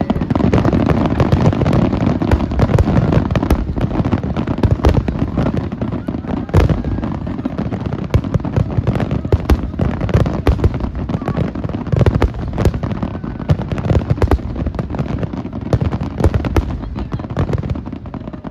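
Fireworks display: a dense, rapid barrage of shell bursts and crackles, banging almost without pause, thinning out near the end.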